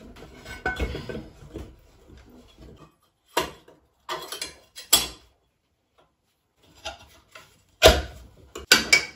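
Metal parts of a street-light gear tray being handled during reassembly: rubbing and rustling, then a few sharp clicks. After a short pause there is a louder clatter of knocks near the end as the leak transformer goes back into the tray.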